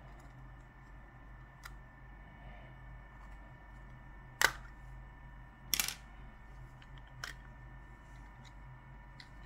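A few short, sharp clicks: the loudest about halfway through, a quick cluster of clicks just over a second later, and a weaker one after that.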